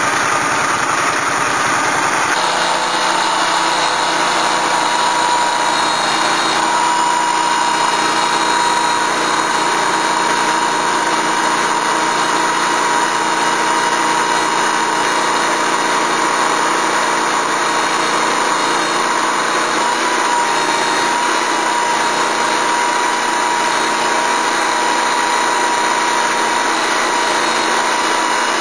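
Lucas Mill portable swing-blade sawmill running steadily, its petrol engine driving the circular blade through a madrone burl to cut a slab, with a steady whine throughout.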